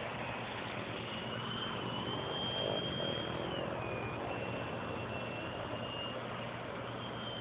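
Electric motor and 9x4.7 propeller of a Twisted Hobbies foam 3D aerobatic plane, a thin high whine that climbs, dips and steps in pitch several times as the throttle is worked, over a steady rushing noise.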